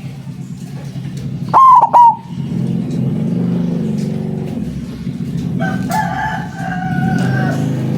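White zebra dove (perkutut) calling: two loud, ringing notes about two seconds in, then a long drawn-out call near the end, over a steady low drone.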